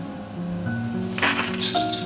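Bundle of dry spaghetti dropped into a pot of water, the stiff strands rattling against the enamel pot as they fan out, a brief clatter a little past a second in. Background music plays throughout.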